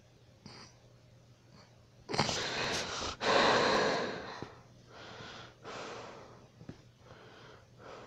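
A sleeping person snoring: one loud, noisy breath in and out starting about two seconds in, followed by two softer breaths.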